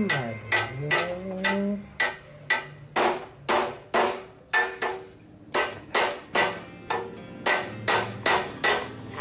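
Wooden-handled hammer striking the steel frame of a Mobylette AV44 moped: a steady run of sharp blows, about two a second, with a brief pause around five seconds in.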